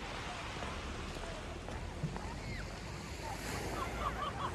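Waves washing on a shingle beach, a steady surf hiss with wind rumbling on the microphone. A few short high chirps come in over it near the end.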